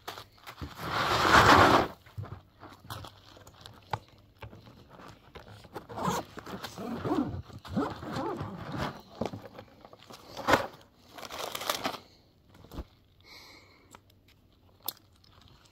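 Close rustling, crinkling and crunching of a bag and a jacket being rummaged through and pulled out, mixed with gravel crunching under sandals. The loudest is a long rustle about a second in, and the handling thins out in the last few seconds.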